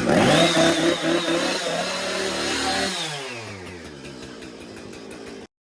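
Gas chainsaw revving up and held at high speed, then slowing with a steadily falling pitch from about three seconds in. The sound cuts off abruptly near the end.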